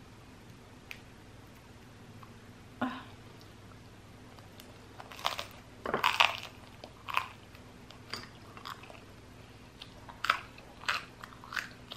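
Biting into and chewing crusty baguette with cheese, with crisp crunches of crust. The first bite comes about three seconds in, then clusters of crunches follow, loudest around the middle.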